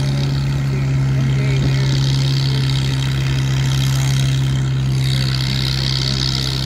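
Oliver 66 tractor engine running at a steady speed, one low drone that holds the same pitch throughout.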